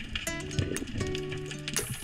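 Background music: held instrumental notes that change every half second or so, with sharp percussive clicks.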